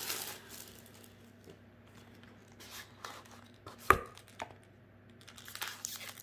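Cardboard collector booster box and foil-wrapped booster packs being handled: soft rustling at the start and again near the end, with a few sharp taps, the loudest about four seconds in.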